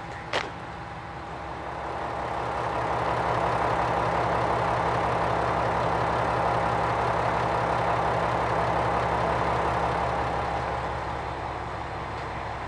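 Diesel railcar engine running as the train goes by: it swells about two seconds in, holds steady with a constant whine over the engine note, then fades away near the end. A single sharp click about half a second in.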